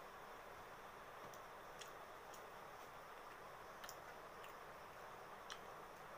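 Faint, irregular clicks of someone chewing a mouthful of rice and curry, over a steady hiss.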